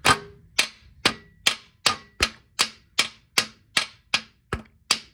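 Sharp metal-on-metal knocks repeating evenly about two and a half times a second, a dozen or so in all, each ringing briefly: a part of a VW TDI diesel's bottom end being tapped or worked while the engine is checked for the cause of its knock.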